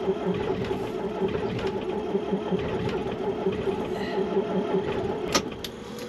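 Starter motor of a Scania truck cranking the cold diesel engine in hard frost, with a steady whine over a rhythmic pulsing. The engine catches a little but does not start. Right at the end the starter is released and its whine begins to fall away. The owner blames diesel that has gelled and frozen in the fuel water separator.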